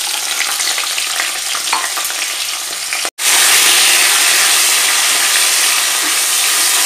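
Chopped tomatoes sizzling in hot oil and cumin seeds in a kadai, stirred with a wooden spatula. The sizzle breaks off for an instant about three seconds in, then comes back louder.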